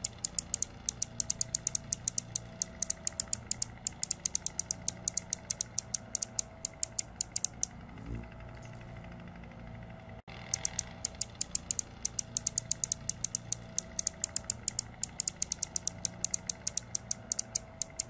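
Male Anna's hummingbird singing from a perch: long runs of rapid, high, scratchy ticks and squeaks. The song breaks off for a few seconds past the middle, then starts again.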